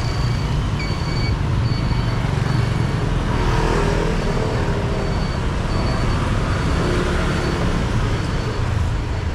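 Steady city street traffic, a constant low rumble of passing engines. Through it, a short high electronic beep repeats about once every second, pausing briefly near the middle.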